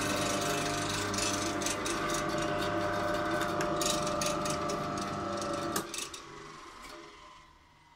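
Shop-built disc sander and bandsaw, each driven by an old electric motor, running with a steady hum and light rattling, then being switched off: one tone drops out partway through, the rest cuts out about six seconds in, and a falling whine follows as the machines coast down to a stop.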